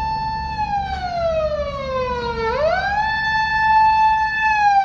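Japanese police patrol car siren wailing: the pitch rises quickly, holds for about two seconds, then slides slowly down, twice over, getting louder as the car approaches.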